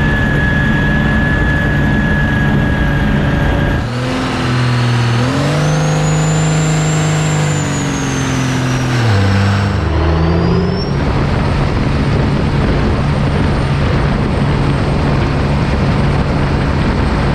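Cummins diesel engine of a 600 hp V-drive speed boat running hard. About four seconds in it revs up and a high turbo whistle climbs and then falls away as the throttle comes off near ten seconds. It then runs steadily under a haze of wind and water noise.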